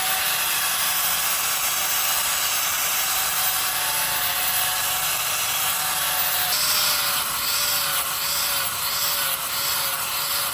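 A power tool running steadily, with a faint whine. About six and a half seconds in, a rhythmic sweeping pattern begins, roughly one and a half strokes a second.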